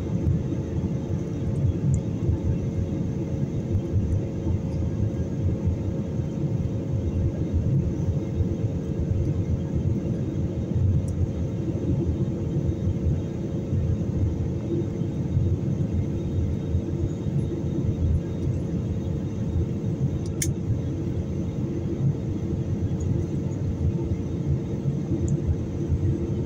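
Cabin noise of a jet airliner climbing just after takeoff: a steady low roar of engines and airflow with a steady hum over it. A single sharp click sounds about twenty seconds in.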